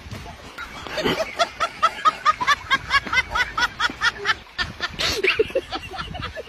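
High-pitched laughter in a rapid run of short "ha" notes, about five a second, starting about a second in. It drops to a few lower laughs near the end.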